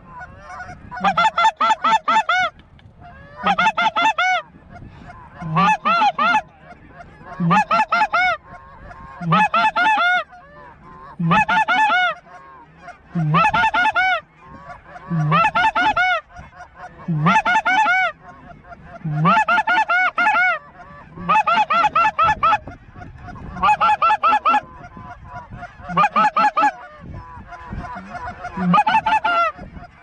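Snow goose honks in regular bursts about every two seconds, each burst a quick string of high, yelping honks.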